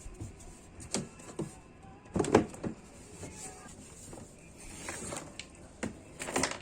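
A series of irregular short knocks and clatters, the loudest cluster a little over two seconds in, with another burst near the end.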